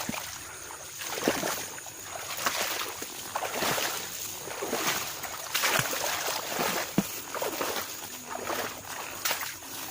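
Footsteps wading through knee-deep swamp water, a slosh and splash about once a second at a walking pace.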